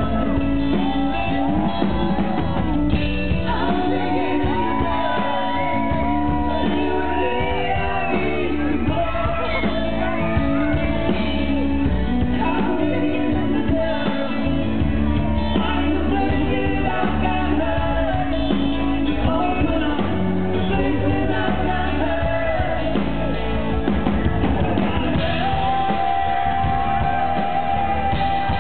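Live rock band playing, with a male lead singer singing into a handheld microphone over drums, bass and guitar.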